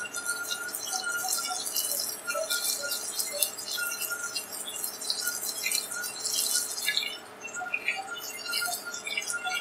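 Coated chicken pieces deep-frying in hot oil, a constant sizzle full of crackling pops that eases briefly about seven seconds in. Soft background music plays underneath.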